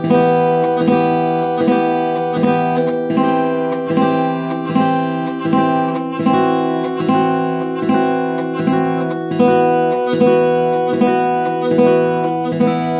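Acoustic guitar music: chords strummed in a steady rhythm, a little more than one strum a second, each chord ringing on.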